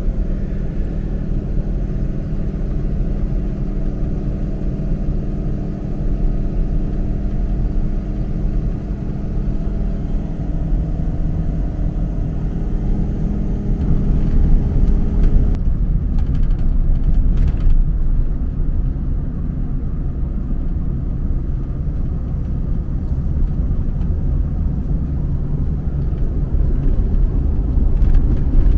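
Vehicle driving, heard from inside the cab: a steady low rumble of engine and tyres on the road. About halfway through the steady engine tone drops away and only the low road rumble is left.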